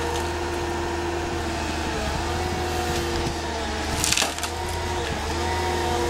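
Excavator engine and hydraulics running steadily under a tree shear gripper, its pitch shifting as load changes, with one loud crack of splintering wood about four seconds in as a trunk is sheared or breaks.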